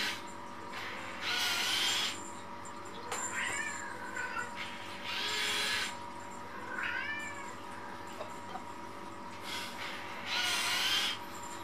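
Kittens mewing, short high calls that rise and fall, between whirring bursts from a remote-controlled spider robot toy's small motors. The motor bursts come three times, about a second each, and are the loudest sounds.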